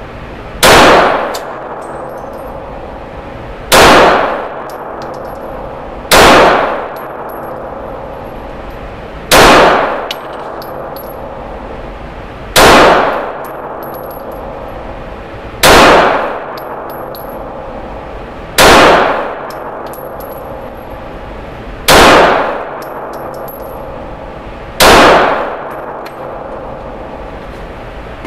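Glock G19 9mm pistol firing nine single shots at a slow, steady pace, about one every three seconds. Each shot rings off over about a second in an indoor range.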